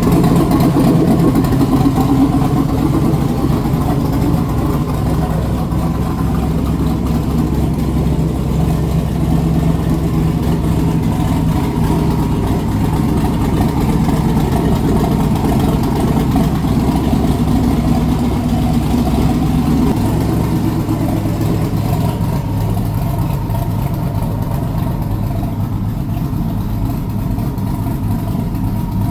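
Twin-turbocharged car engine running at idle on its first start after a top-end rebuild. It runs steadily, and the idle note shifts about two-thirds of the way through.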